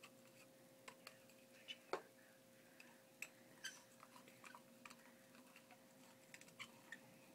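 Faint, scattered light clicks and taps of a small spoon against a dye jar as powdered acid dye is scooped out and handled, the strongest about two seconds in, over a faint steady hum.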